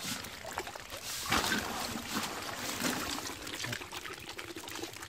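Wet splashing and trickling water with small clicks and slaps as small live fish are scooped by hand out of shallow water and dropped into an aluminium pot.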